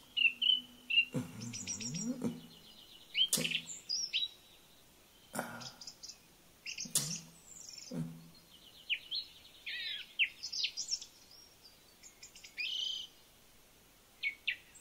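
Small birds chirping and trilling in quick, repeated calls, with several short sharp clicks in between, most of them in the first half.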